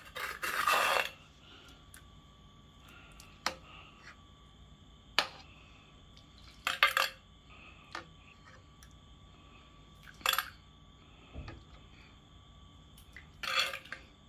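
Metal ladle clinking and scraping against a pot of soup, in scattered strikes a second or several apart, some in quick little clusters.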